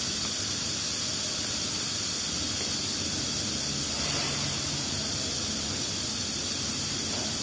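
A steady, even hiss at a constant level with no distinct knocks or clicks.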